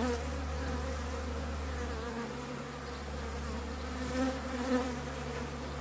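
Honeybees swarming out of an open top bar hive, a steady many-bee buzz with single bees whining past close by, their pitch wavering up and down.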